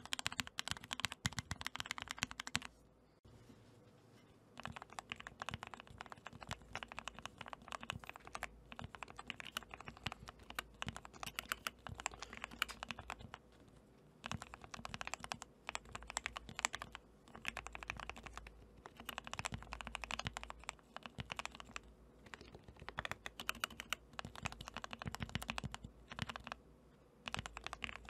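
Fast typing on a mechanical keyboard, with rapid clattering keystrokes. For the first few seconds the board has Gateron Brown tactile switches. After a short pause it has Gateron Oil King linear switches, lubed with Krytox 205g0 and tape-modded for a deeper "thocc".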